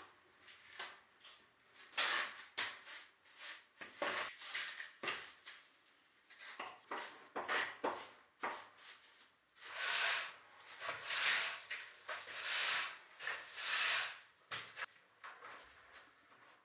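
Swishing strokes of paint being brushed onto a wall: a quick run of short strokes, then several longer sweeps in the second half.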